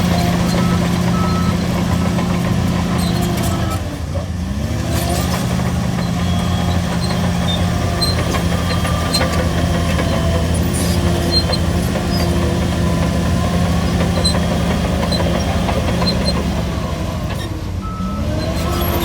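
Shantui DH17C3 crawler bulldozer's diesel engine running hard and steady. Its pitch dips and recovers about four seconds in and again near the end, where the machine changes direction. A back-up alarm beeps near the start and again near the end, over light clanking and squeaking from the tracks.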